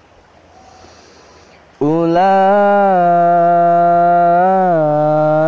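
After a short quiet pause, about two seconds in a young man's voice begins a long held melodic note of Quran recitation in tartil style, its pitch stepping gently up and back down.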